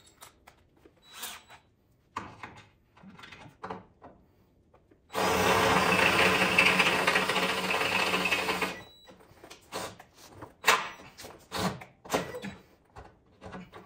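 Cordless drill boring through the truck's steel frame rail to enlarge a bolt hole. It runs steadily under load for about four seconds, starting about five seconds in, and stops abruptly. Light clicks and knocks from handling the drill come before and after.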